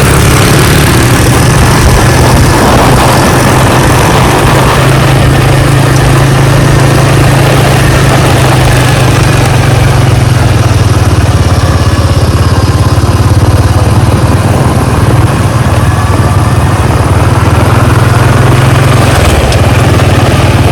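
A vehicle's engine running steadily, a constant low hum under a loud, even rush of noise.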